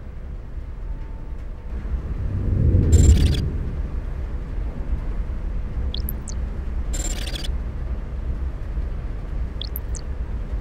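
Designed sound effects: a steady low rumbling drone, with a whoosh that swells and fades about three seconds in. Short high rising electronic chirps come near six and ten seconds in, and brief hissy digital swishes at about three and seven seconds.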